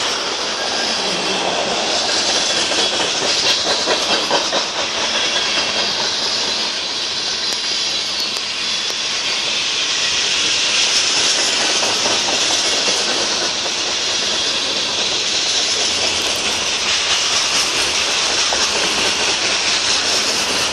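Freight train of tank cars and covered hoppers rolling past: a steady hiss and rumble of steel wheels on the rails, with faint clicks.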